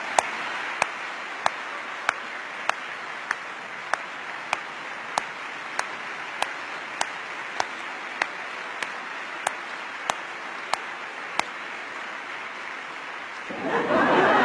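Large audience applauding steadily, with one person's sharp, evenly spaced claps close to the microphone, about one and a half a second, stopping about eleven seconds in. Near the end a louder swell of crowd noise comes in.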